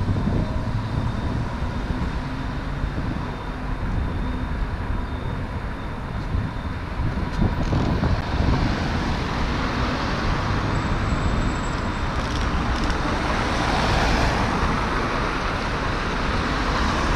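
City street traffic: cars driving through an intersection, with tyre and engine noise swelling as vehicles pass about halfway through and again near the end, over a steady street hum.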